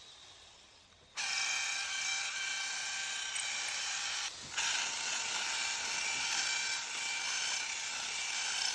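Electric drill boring a dowel hole in stone, running with a steady high whine. It starts about a second in and cuts out briefly a little before halfway.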